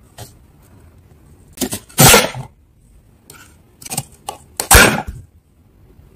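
Knife blade cutting down through a block of dry, squeaky freezer frost, crunching in a handful of short bursts. The loudest come about two seconds in and again near five seconds.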